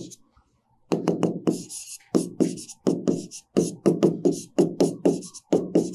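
Chalk writing on a blackboard: a quick run of sharp chalk knocks, about three or four a second, with scratchy strokes between them, starting about a second in after a short quiet.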